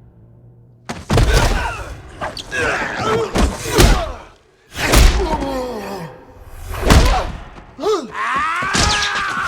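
Fight sound effects: heavy punch impacts and body thuds, about five hits starting a second in, mixed with strained grunts and groans between the blows.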